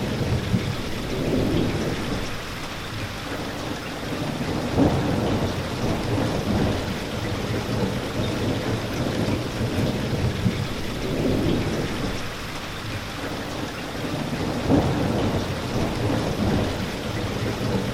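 Steady rain, with low thunder rumbles swelling and fading several times and two brief louder cracks.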